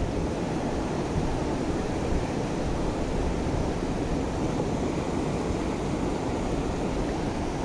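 Steady rush of a fast river running over a shallow, rocky riffle, an even noise with no breaks.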